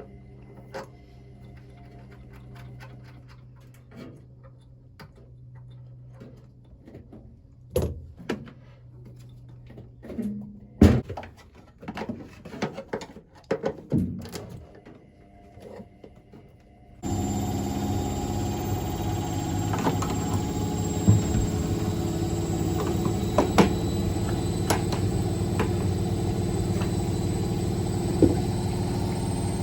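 Scattered clicks and knocks of handling, then about halfway through a steady washing machine motor drone starts abruptly and keeps running.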